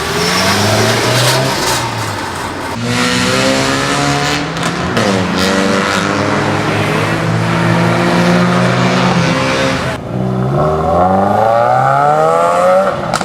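Loud car engines revving and accelerating hard, their pitch climbing, dipping between gears and climbing again. The sound changes abruptly about three seconds in and again near ten seconds, as one accelerating car gives way to another.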